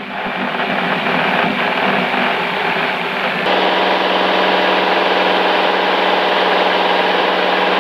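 A light aircraft's engine and propeller heard from inside the cockpit, building to takeoff power for a touch-and-go. About three and a half seconds in it settles into a steady, evenly pitched drone at climb power.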